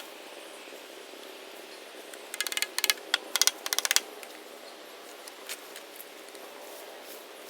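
Four short bursts of rapid clicking, a ratchet-like rattle, between about two and four seconds in, over a faint steady hum.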